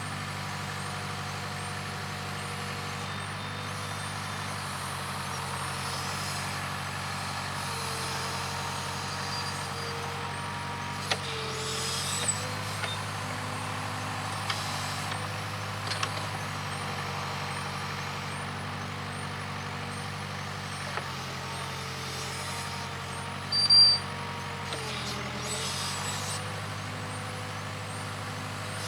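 Case 580K backhoe's four-cylinder diesel engine running steadily while working, its pitch dipping and recovering as the hydraulics load it. Scattered short clanks, and one louder short burst about three-quarters of the way through.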